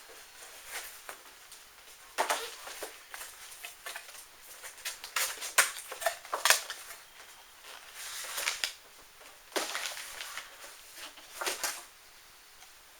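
Packaging rustling and crinkling in scattered bursts, with light clicks and taps, as the kit's parts are lifted from the box.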